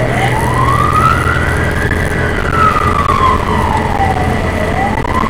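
Fire engine's wail siren, its pitch slowly rising and falling about once every four and a half seconds, heard from inside the cab over the steady drone of the truck's engine.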